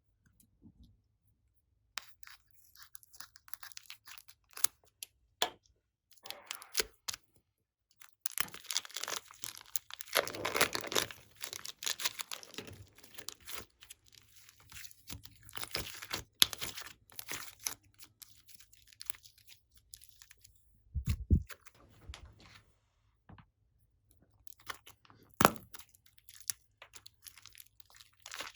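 Slime being squeezed and stretched by hand, giving irregular sticky crackles, pops and tearing sounds, busiest from about eight to thirteen seconds in, with a dull thump a little after twenty seconds.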